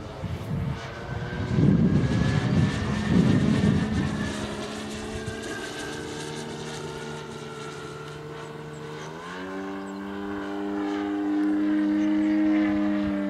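Large RC aerobatic plane's DLE 222 four-cylinder gasoline engine on canister mufflers, running steadily in flight. It steps up in pitch about nine seconds in and gets louder near the end. Two loud rumbling gusts hit the microphone in the first four seconds.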